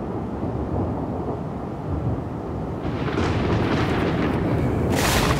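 Thunder: a low rolling rumble that builds in loudness and breaks into a sharp crack near the end.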